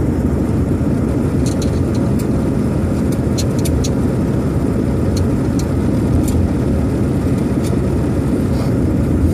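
A 1966 Ford Thunderbird under way: its V8 and the road noise make a steady rumble, with a few short sharp ticks in the first half.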